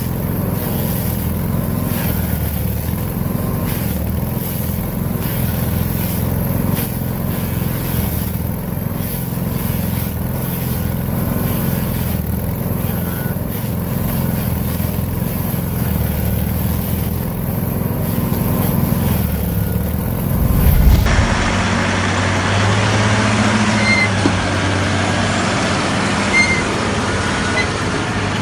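Heavy machinery engine running steadily. About two-thirds of the way through, the sound cuts abruptly to a different machine running.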